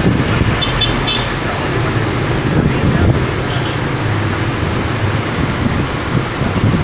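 Scania P310 fire truck's diesel engine running under way, heard inside the cab as a steady low drone mixed with road noise. A few faint short high beeps come from the surrounding traffic about a second in.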